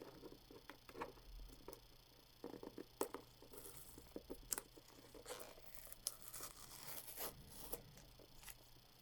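Faint handling and tearing of a trading-card booster box's packaging: scattered small clicks and taps, with a brief scratchy tear a few seconds in and a longer one past the middle.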